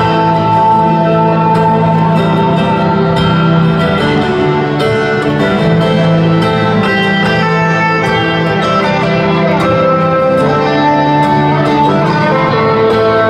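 Live country band playing an instrumental passage without vocals: strummed guitars under held lead notes, amplified through a concert PA.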